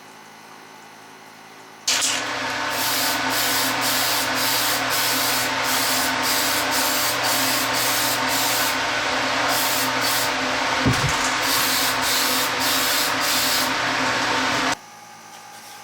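A motor-driven power tool running and cutting, with a harsh hissing scrape that pulses about twice a second over a steady motor tone. It starts and stops abruptly.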